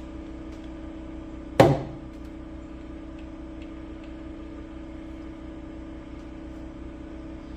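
A single sharp knock with a short ring, like metal set down on a hard surface, about one and a half seconds in, over a steady low hum.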